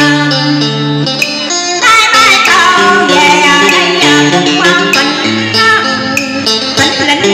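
A woman singing into a microphone over instrumental backing with plucked notes. The backing carries the first two seconds or so, then the voice comes in.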